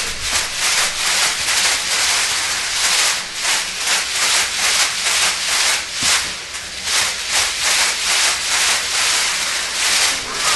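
Many plastic caxirola shakers shaken together by a group in a steady beat, about three shakes a second, giving a loud massed rattling hiss.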